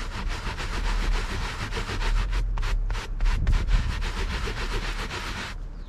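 Terry-cloth towel rubbed hard back and forth over a boat's felt-like upholstery fabric, a quick rasping scrub that stops just before the end. The towel is wiping away the cleaner and the loosened dirt.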